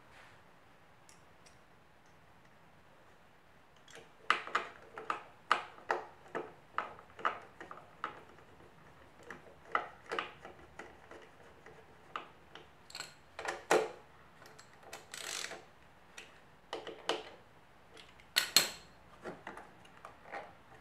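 Small metal parts and tools clicking and clinking as a scooter engine's starter clutch and washers are fitted back on: irregular sharp clicks, starting about four seconds in, a few of them loud.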